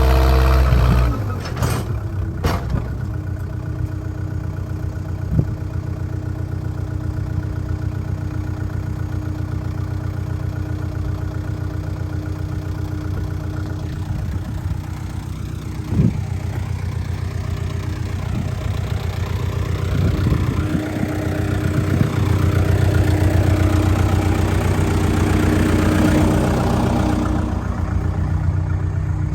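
Diesel engine of a JCB backhoe loader running, dropping from higher revs to a lower, steady speed about a second in. Its speed picks up again for several seconds past the middle before easing off, with a few sharp knocks along the way.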